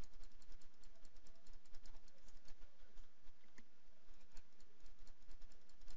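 Rapid, irregular clicking of a computer mouse, several clicks a second, each placing a stitch point in embroidery digitizing software, over a steady low hum.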